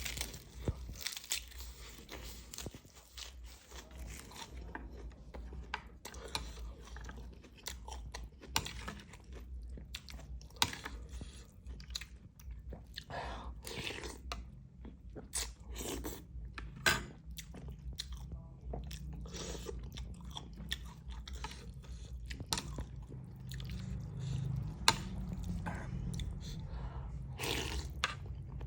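A person eating beef noodle soup close to the microphone: chewing and crunching mouthfuls, with irregular mouth clicks and smacks.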